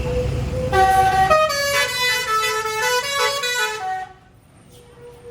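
Tour bus's 'basuri telolet' musical horn playing a quick tune of changing notes over the bus engine's rumble, cutting off about four seconds in.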